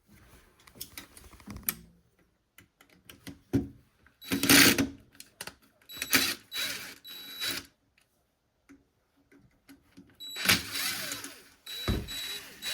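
Tools working at the carbon brush holder of a washing machine motor: scattered clicks and knocks, and three harsh, noisy mechanical bursts of one to two seconds each, the last near the end the longest.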